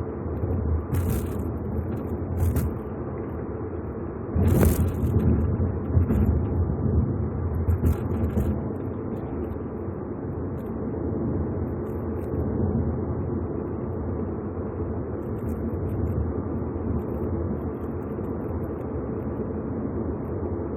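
Mitsubishi Eclipse Cross driving, with steady road and tyre noise, and a few sharp knocks and rattles about 1, 2.5, 4.5 and 8 seconds in, the one at about 4.5 seconds the loudest. This is the flapping 'bata-bata' rattle the car gives over manhole covers and bumps, an abnormal noise whose cause the dealer struggled to pin down.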